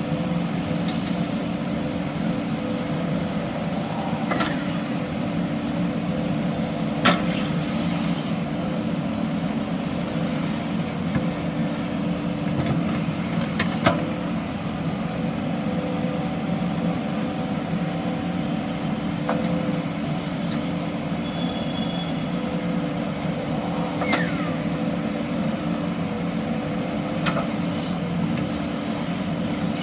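JCB 3DX backhoe loader's diesel engine running steadily while working, a constant even drone. A few sharp metallic knocks stand out above it, the loudest about a third and halfway through.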